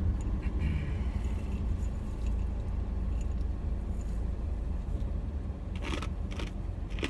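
Steady low rumble inside a car. Near the end come several quick, crisp crunches as salted soy nuts are eaten.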